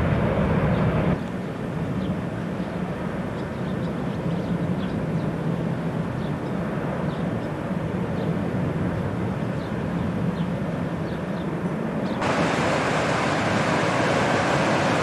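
Distant jet airliner engine noise from an aircraft on the runway, a steady rumble that drops abruptly to a quieter level about a second in. Near the end it cuts suddenly to a louder, brighter steady hiss.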